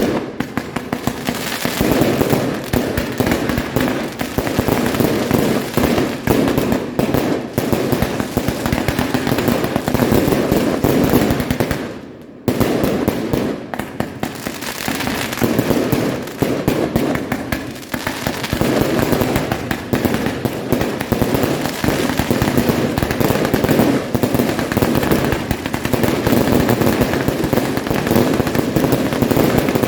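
Fireworks going off in a dense, continuous run of bangs and crackles, with a short lull about twelve seconds in.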